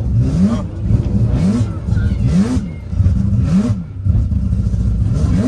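Mazda 26B four-rotor rotary engine revving hard under load, its pitch climbing sharply and dropping back again and again, about once a second.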